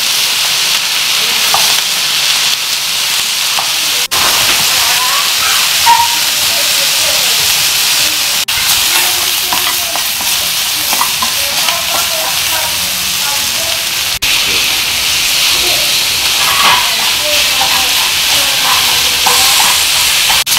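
Sliced mushrooms sizzling as they fry in oil in a nonstick pan, with a spatula stirring them and scraping against the pan.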